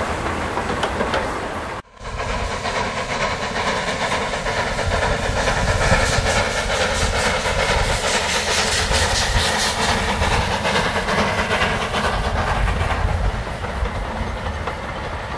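A narrow-gauge steam train running past with its coaches. The sound is loud and steady, with a sudden brief drop-out about two seconds in.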